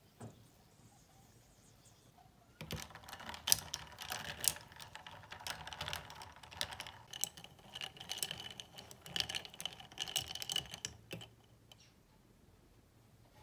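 A metal straw stirring iced coffee in a glass: ice cubes and the straw clink against the glass in quick, irregular clicks with a light glassy ring. The clinking starts about two and a half seconds in and stops about two seconds before the end.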